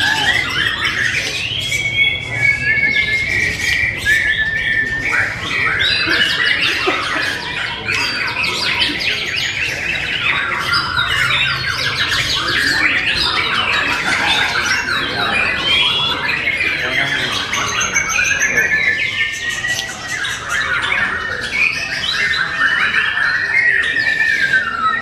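Caged white-rumped shama (murai batu) singing: a dense, unbroken run of chirps, rapid trills and whistles, with long held whistles about two seconds in and again near the end.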